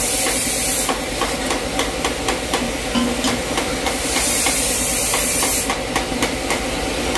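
Quick light hammer taps on steel exhaust parts, several a second, over a steady hiss.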